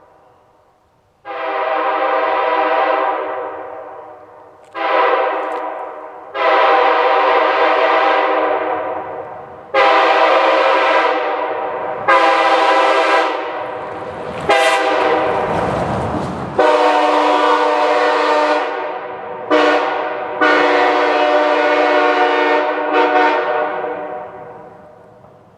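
Multi-chime locomotive air horn sounding a chord in about ten separate blasts of varying length, most of them fading as they are held, with a burst of rushing noise partway through.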